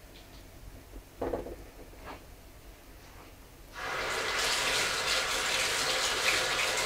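Water tap running steadily into a sink, starting about four seconds in after a couple of faint knocks.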